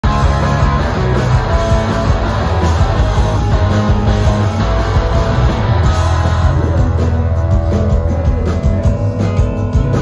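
Live rock band playing at full volume: electric guitars, bass, keyboard and drums.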